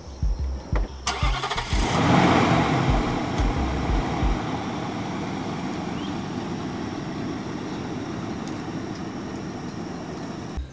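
A click about a second in, then a Nissan Armada SUV's engine starts and runs, loudest just after it catches and settling to a steady run. Low music beats sound underneath for the first few seconds.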